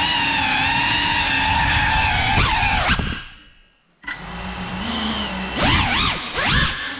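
Geprc Cinelog 35 cinewhoop's brushless motors and propellers whining, the pitch rising and falling with throttle. The sound fades out about three seconds in and cuts back in a second later, then swoops up and down quickly near the end.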